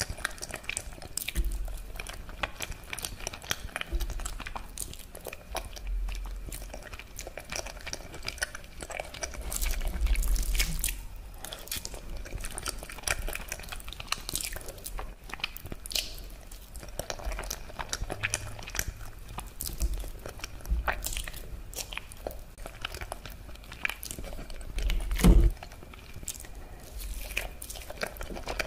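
Close-miked eating of creamy Alfredo spaghetti: wet chewing, slurping and sticky mouth clicks, with a few soft low thuds and one louder thump about 25 seconds in.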